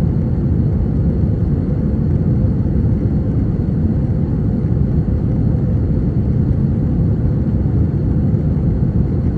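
Steady cabin noise of an Airbus A321-231 climbing after takeoff, heard from a window seat: its IAE V2500 turbofan engines and the rush of air along the fuselage blend into a dense, even low rumble, with a faint thin whine above it.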